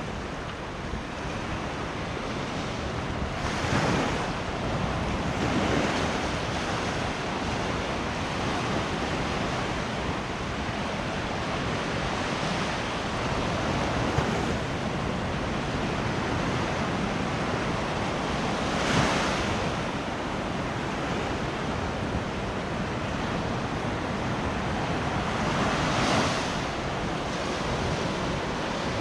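Surf on a sandy beach: a steady wash of waves, with louder waves breaking four times, plus some wind noise on the microphone.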